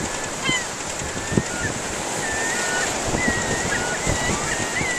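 Seagulls giving short, high calls again and again over a steady wash of surf and wind.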